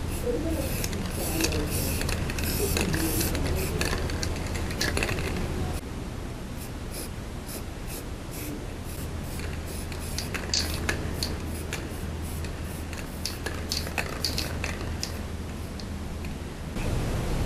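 Aerosol can of acrylic spray paint hissing in many short bursts: close together for the first several seconds, then more spaced out later, over a steady low hum.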